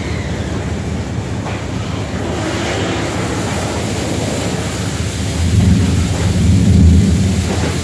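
Tunnel car wash machinery running: conveyor, hanging cloth washers and water spray, a steady low rumble with hiss over it. The rumble swells louder about five and a half seconds in for a second or two.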